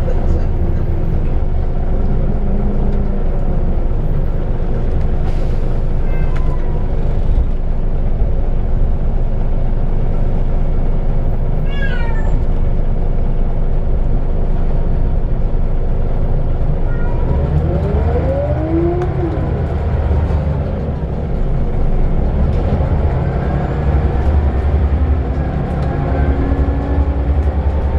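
Scania L94UB single-deck bus under way, heard from inside the cabin: the engine drones steadily under a wash of road and body noise. A quick run of high squeaks comes about twelve seconds in, and a whine rises and falls about eighteen seconds in.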